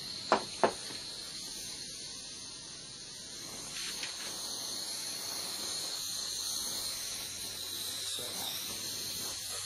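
Propane blowtorch flame hissing steadily while it heats a rusted bolt's steel bracket, getting slightly louder about four seconds in. Two sharp clicks sound about half a second in.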